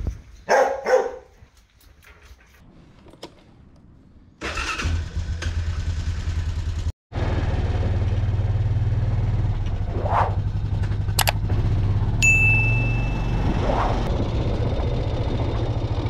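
A short animal call, then about four seconds in a quad bike engine starts and runs steadily at a low, even pitch.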